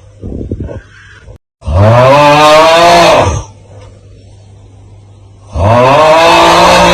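The 'Aauuggh' TikTok meme sound: a man's loud, drawn-out 'aauuggh' yell that rises then falls in pitch, lasting about two seconds. It comes twice, about one and a half seconds in and again about five and a half seconds in, with a brief gap of silence just before the first.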